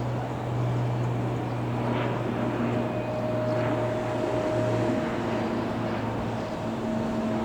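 Aircraft engines running steadily: a low hum with a few held tones over a rushing background.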